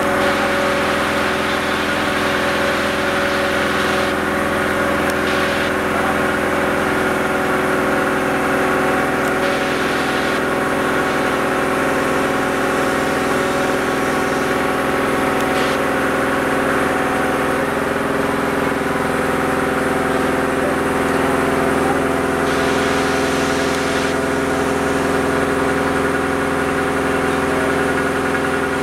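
Engine of a rope-hoist building-material lifting machine running steadily under load while it hauls a bundle of steel pipes up the building face.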